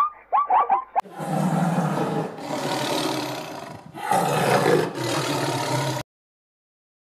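A donkey braying in quick, curving calls for about the first second, then a tiger roaring and growling in several long, rough stretches. The roar cuts off suddenly about a second before the end.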